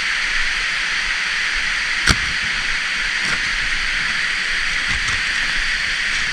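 Water rushing steadily over a small spillway, with one sharp click about two seconds in.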